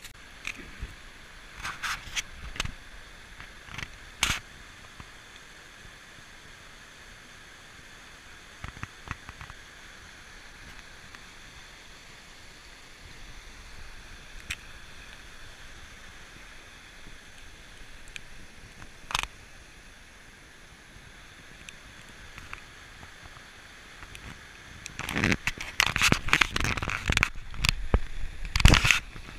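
Dry twigs, leaves and branches crackling and scraping under footsteps and against a person pushing through dense undergrowth. There are a few separate sharp snaps, then a dense, louder stretch of crackling and rustling near the end, over a faint steady hiss.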